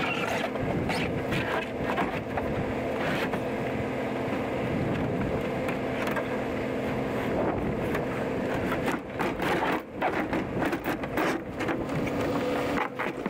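A large old television scraping and knocking as it is pushed across a truck's metal liftgate and bed, over a steady engine hum and wind on the microphone. A cluster of sharp knocks comes about nine to eleven seconds in.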